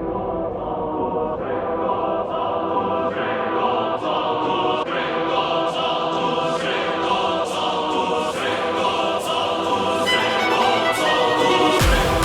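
Background electronic music: sustained choir-like chords, brightening steadily, with a beat building under them and a deep bass hit near the end.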